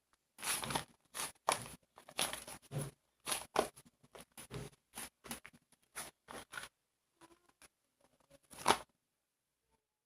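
Slime being squeezed and stretched by hand, giving an uneven run of sticky crackles, pops and tearing sounds, the loudest just before it stops near the end.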